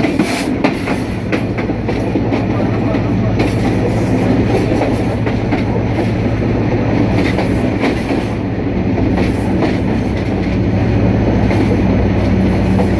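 Moving passenger train heard at the open gap between two coaches: a loud steady rumble of wheels running on the rails, with scattered sharp clicks and rattles.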